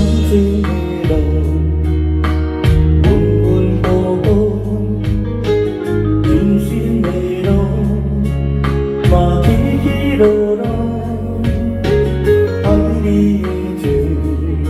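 Instrumental introduction of a Hokkien-language ballad: a steady bass line with a melody over it and a regular beat.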